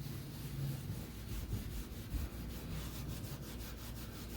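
Fine steel wool rubbed back and forth over a shellac finish on wood, a steady scratchy rubbing. It is dulling the shiny patches that denatured alcohol left in the shellac.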